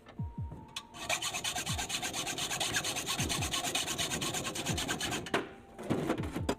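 Rapid, evenly repeated rasping strokes of a tool scraping over a workpiece, lasting about four seconds and stopping suddenly, over background music with a repeating falling bass thump.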